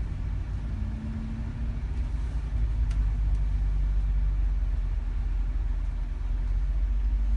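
Low, steady rumble of a vehicle engine running, with no horn sounding.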